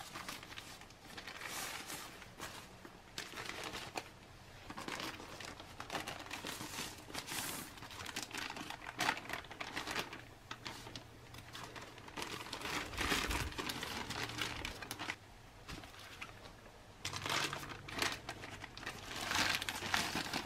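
Heater bags and packaging crinkling and rustling in irregular bursts as heated ration meal pouches are pulled out of their flameless-ration-heater sleeves, with a dull thump about two-thirds of the way through.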